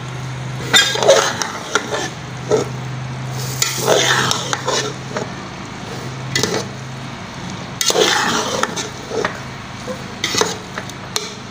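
A perforated metal skimmer stirring egg fried rice with vegetables in a metal pot, scraping the pot's sides and bottom in irregular strokes with metal clicks.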